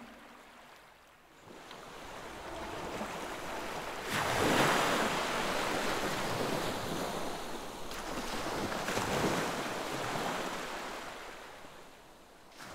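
Sea surf washing in: a wave breaks about four seconds in and another swells later, then the wash of the surf fades away near the end.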